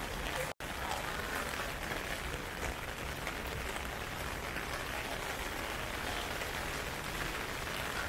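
Heavy typhoon rain falling and splashing, a steady dense hiss, broken by a split-second gap about half a second in.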